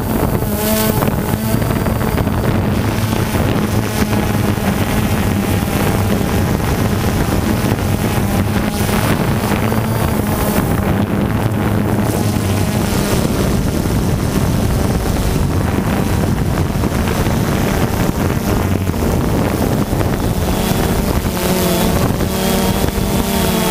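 Multirotor drone's electric motors and propellers buzzing steadily, heard from the camera mounted on the drone itself, with wind on the microphone. The pitch wavers near the start and again near the end as the motor speeds change.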